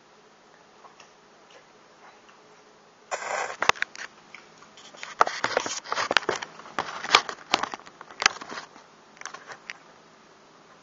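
Close handling noise of charred barbecued iguana being pulled apart by hand. A short rustle about three seconds in is followed by a run of sharp crackles and clicks lasting about five seconds.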